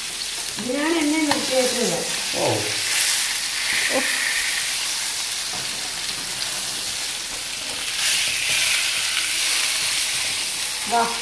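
Fish pieces shallow-frying in hot oil in a pan, a steady sizzle, while they are turned over in the pan.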